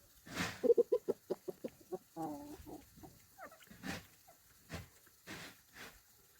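An animal calling in a quick run of short notes, then a longer drawn-out call about two seconds in, with several brief noisy rustles in between.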